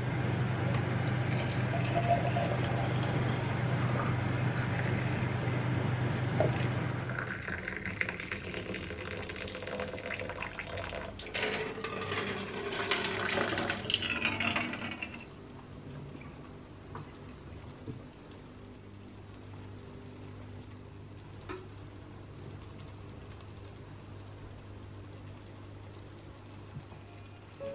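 Water poured from a kettle into empty glass jars, splashing and filling, with the pitch of the filling jar rising. It stops about fifteen seconds in, leaving a low hum.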